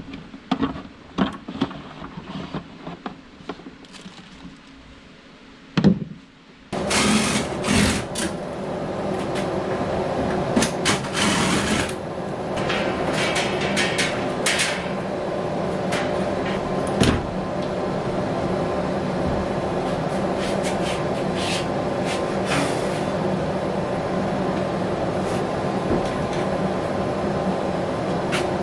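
Plastic clicks and knocks as the parts of an inline duct fan and its housing are handled and fitted together. About seven seconds in, a steady machine hum starts suddenly, with scattered clicks and knocks of work at an electrical breaker panel over it.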